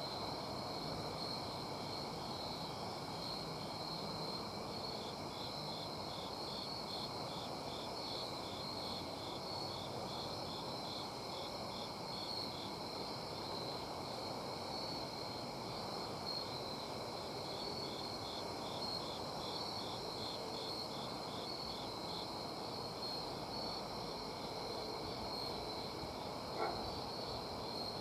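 Crickets chirping in a steady chorus: a continuous high trill with an evenly pulsed chirp repeating over it. A single short knock near the end.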